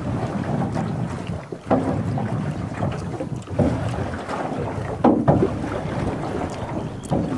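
Small boat being poled through shallow water: wind buffets the microphone over steady sloshing, with four louder pushes or splashes of the poles about every two seconds.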